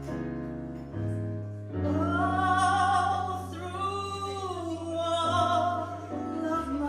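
A solo voice singing a slow ballad over instrumental accompaniment, drawing out long held notes above a sustained bass.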